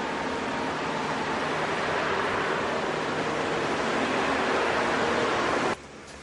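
Road traffic noise, a steady broad rush that slowly grows louder, then cuts off abruptly near the end and gives way to a much quieter background.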